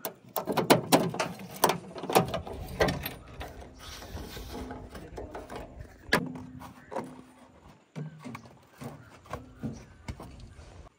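Irregular mechanical clattering and knocks, thick and loud for the first three seconds, then sparser, with a faint steady hum under them in the middle.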